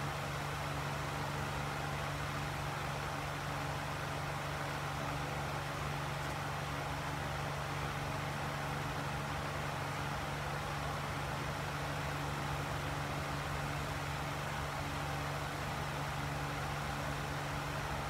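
Steady low hum with a few faint higher tones, unchanging throughout: room tone of running bench equipment.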